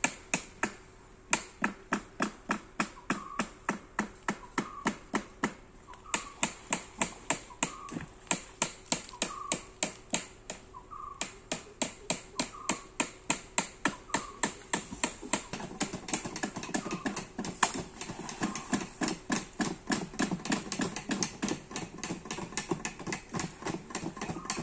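Sharp taps repeating evenly about three times a second, with a few short breaks, over a faint steady hum.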